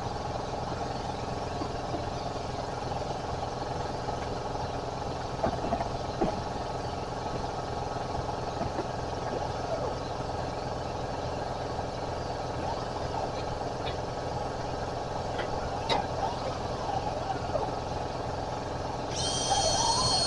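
A steady mechanical hum with several fixed pitches, with a few faint clicks and knocks. About a second before the end, a high whine made of several steady tones comes in.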